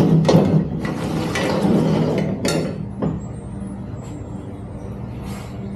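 Clattering and rattling of bicycle parts being handled and taken apart, loudest over the first three seconds with a few sharp clicks, then quieter, over a steady low hum.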